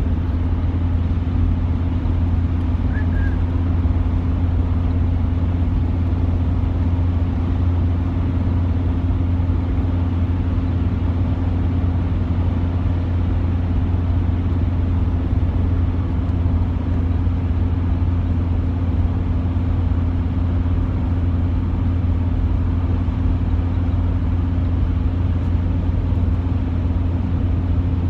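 Steady in-cabin drone of a diesel car cruising at motorway speed: a constant low engine hum blended with tyre and road noise, unchanging in pitch and level.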